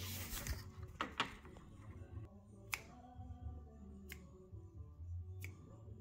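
Faint music from a construction crew's radio next door: a bass line and held notes under a sharp clap or snare on a steady beat, a little over a second apart.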